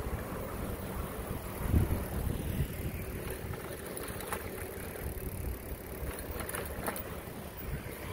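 Riding a bicycle along a street: a low, steady wind rumble on the microphone with a few light clicks and rattles from the bike, swelling briefly a little under two seconds in.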